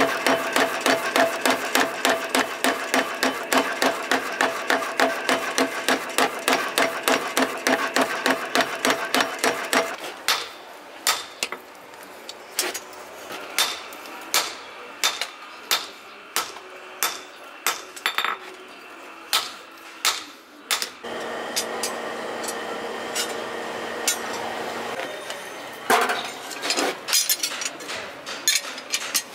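A power hammer pounds red-hot steel in a rapid, even rhythm of about four or five blows a second over the hum of its running machinery. About ten seconds in, the pounding stops and a hand hammer strikes the hot steel on a post anvil in slower, uneven blows. Before the hand blows resume near the end, there is a stretch of steady machine hum with no blows.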